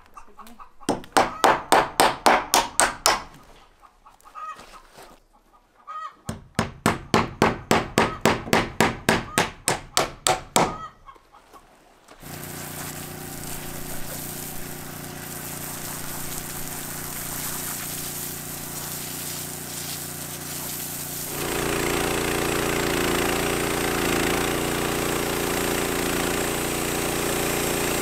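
Two runs of loud, rapid repeated strokes, about four a second, each lasting a few seconds. Then a small engine starts running steadily about twelve seconds in and gets louder about nine seconds later.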